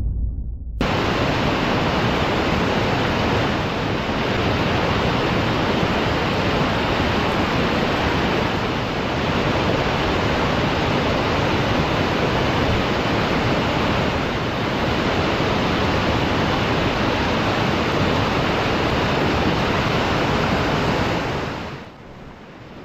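Whitewater river rapids rushing over boulders: a steady, even rush of water that starts about a second in and drops away near the end.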